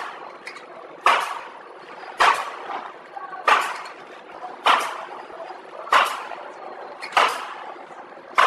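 Pillow packaging machine (horizontal flow wrapper) running, with a sharp clack a little over once a second, about eight in a row, each with a short ringing tail, over a steady lower machine noise: the regular beat of the wrapping cycle, one stroke per packed bun.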